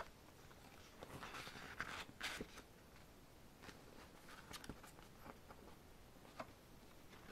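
Faint rustling of photobook pages being handled and turned, loudest between about one and two and a half seconds in, followed by a few light taps and ticks of paper.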